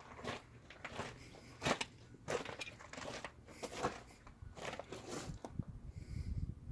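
Footsteps of a person walking over loose, crunchy ground, a crunching step about every half second to second.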